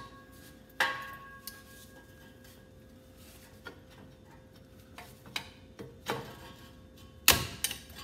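Metal knocks and clanks from a loose exhaust pipe section with a flex joint, on a 1992 Honda Accord, as it is worked down out of the underbody. A knock about a second in rings on briefly, lighter ticks follow, and the loudest clanks come near the end.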